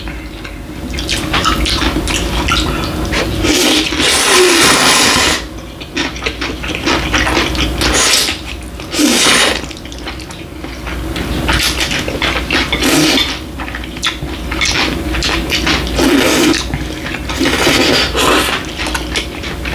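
Two people slurping bibim ramen noodles, in repeated loud, wet slurps a second or so long.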